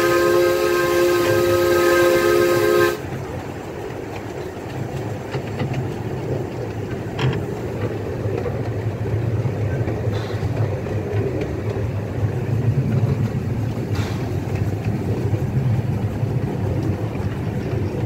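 Miniature steam locomotive's chime whistle blowing a chord of several steady tones, cutting off suddenly about three seconds in. Then the train running along the track with a low rumble and a few clicks from the rails.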